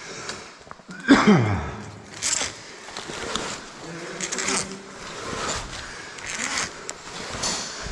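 Caving gear and clothing rustling and scraping, with sharp clicks of metal hardware. About a second in there is a short falling pitched sound.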